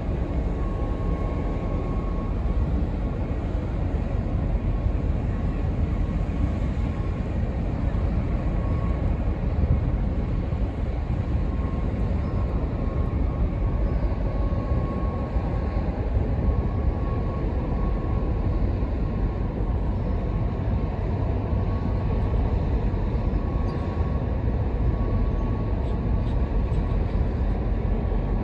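Ro-ro passenger ferry Ben-my-Chree's engines and machinery running as it passes close at slow speed: a steady low rumble with a faint steady whine over it.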